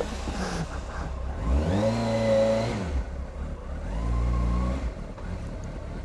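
2007 Honda CBR600RR's inline-four engine pulling away at low speed: the engine note rises and holds, drops about three seconds in, then rises again.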